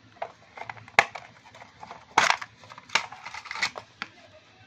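A thin metal geometry tin being handled and opened: a sharp click about a second in, then a few louder metallic clacks and rattles from the tin and its lid, with rustling between them.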